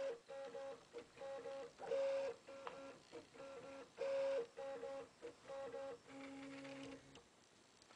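Stepper motors of a RepRap-style 3D printer sounding in short stop-start runs of steady tones that change pitch as the extruder head moves, printing the last small ABS parts, then stopping about seven seconds in.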